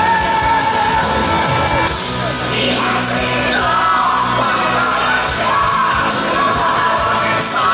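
Live pop-rock band playing with a man singing long held notes of a ballad, heard through the stadium's amplification.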